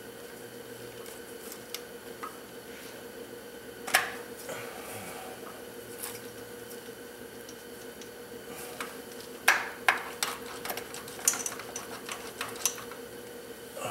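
Scattered sharp metallic clicks and clinks of hand tools on engine hardware as bolts are worked loose, one about four seconds in and a cluster of several near the end, over a steady hum.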